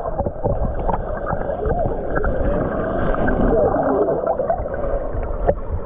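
Muffled water gurgling and sloshing in a rock pool, a dense churning noise with short wavering bubbling tones, and a sharp tick near the end.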